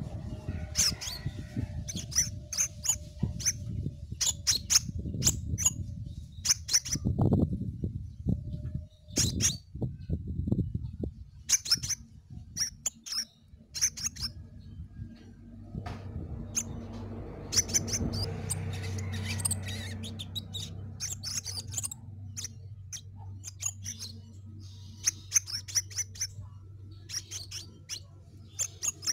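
Caged crimson sunbird (sepah raja) calling vigorously: runs of short, sharp, high-pitched chirps repeated through the whole stretch, over a low background rumble.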